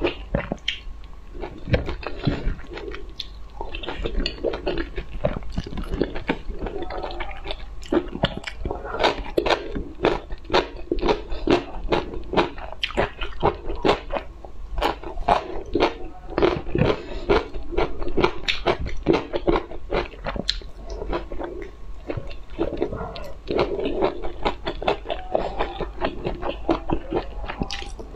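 Close-miked biting and chewing of soft jelly sweets: a fast, uneven run of sharp crisp clicks and mouth smacks.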